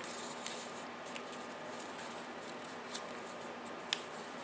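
Quiet handling of journal pages and playing cards: a few small paper clicks and ticks, the sharpest about four seconds in, over a steady low room hum.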